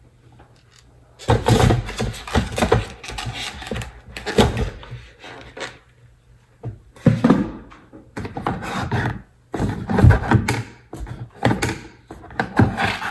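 Plastic-wrapped tray of raw beef and other food packaging handled on a kitchen countertop: irregular knocks, thunks and crinkling, in two spells with a short pause between.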